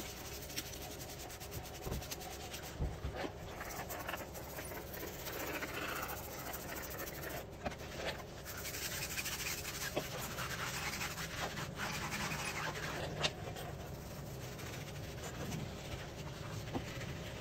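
Quiet spritzing from a hand-held trigger sprayer applying wheel cleaner to a car wheel, with soft rubbing and a few clicks; near the end a brush scrubs the tyre.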